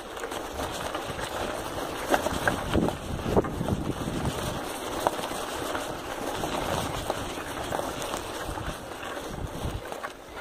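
Wind and shirt fabric rubbing over the microphone while a bicycle rides along a bumpy dirt trail, with scattered clicks and rattles, thickest a couple of seconds in.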